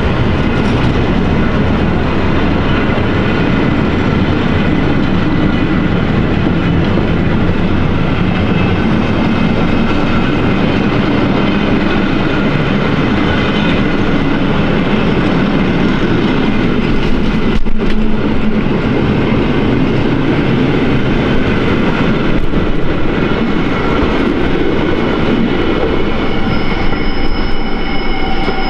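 Long freight train of flat wagons rolling past close by: a steady, loud rumble of wheels on rail. Near the end a high, steady wheel squeal sets in.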